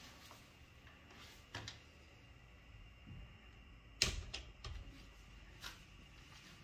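A few light clicks and knocks. The sharpest comes about four seconds in, with two smaller ones just after it.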